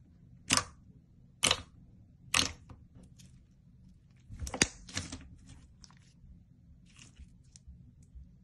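Slime being pressed and worked by hand, making short sharp pops and clicks, about one a second at first, a quicker cluster around the middle, then fainter ones near the end.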